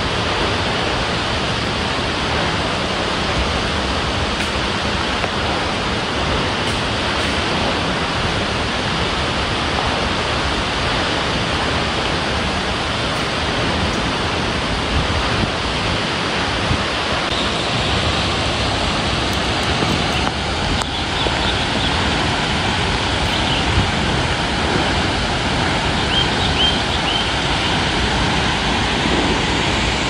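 Steady rushing roar of the high, heavy-flowing Coban Sriti waterfall, a plunge of about 120 m, heard across the gorge. A few faint high chirps come in during the second half.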